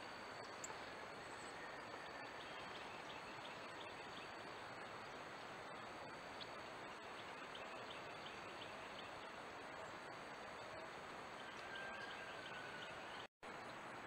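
Steady hiss of a trail camera's microphone outdoors, with a few faint distant bird calls and faint high ticking. The sound cuts out for a split second near the end.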